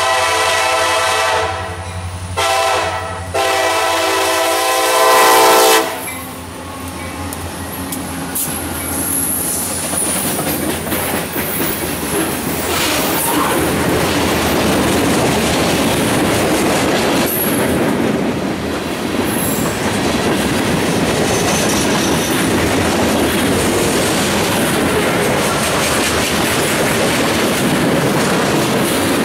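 Freight locomotive horn sounding a chord in several blasts, the last and loudest stopping about six seconds in. Then the freight train rolls past, a steady loud rumble with the clatter of wheels over the rail joints.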